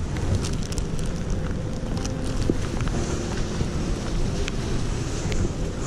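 Rain and tyre hiss of traffic on a wet city street, with wind buffeting the microphone and scattered sharp ticks throughout.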